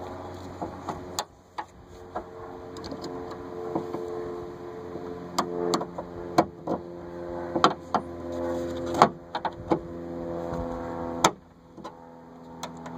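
Sharp metal clicks and knocks, about a dozen scattered through, as a trunk lift strut and its brackets are worked into place, over a steady hum.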